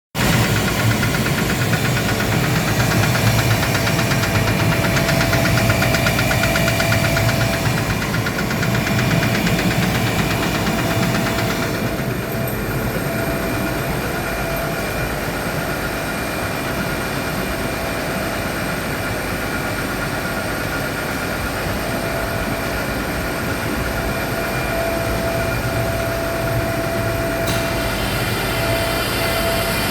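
Gardner Denver screw air compressor running with a fast, regular knocking, the sign of a defective pressure valve. About twelve seconds in the high hiss drops away while the machine runs on.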